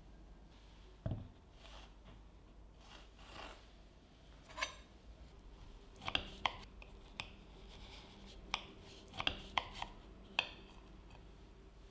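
A knife cutting down through a frozen coffee semifreddo studded with chocolate chips. There is a knock about a second in and some soft scraping, then a run of sharp clicks from about six seconds in as the blade goes through.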